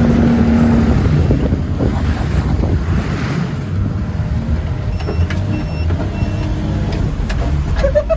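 Military MTV truck's diesel engine running under load through the mud, a heavy low rumble heard from inside the cab. A steady tone stops about a second in, and the cab's warning alarms give faint short beeps through the second half.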